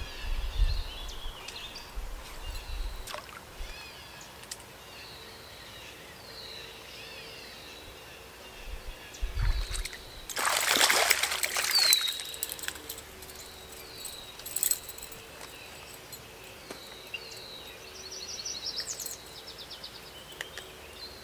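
A hooked bass splashing and thrashing at the water's surface for about two seconds near the middle. A bird keeps calling with short falling whistles throughout.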